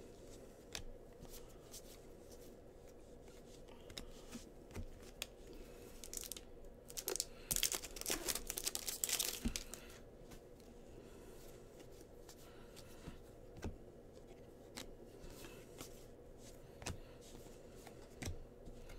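Bowman baseball card pack wrappers being torn open and crinkled, with light clicks and taps from cards being handled; the tearing and crinkling is loudest about halfway through.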